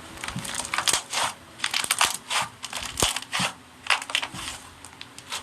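Slime being kneaded and pressed, giving an irregular run of sharp wet clicks and crackles.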